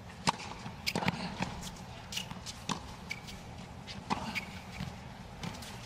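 Tennis ball being bounced and struck with rackets on a hard court during a point: a string of sharp pops and knocks, roughly every half second to a second.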